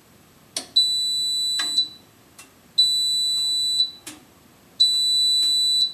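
DeLonghi toaster oven's end-of-cycle alarm: three loud, high-pitched beeps, each about a second long, one every two seconds, signalling that the toast is done. A sharp click comes just before the first beep, with a few fainter clicks between the beeps.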